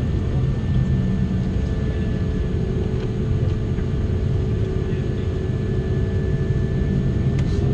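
Airbus A330-200 cabin noise while taxiing after landing: a steady low rumble from the engines at idle, with a faint steady whine over it.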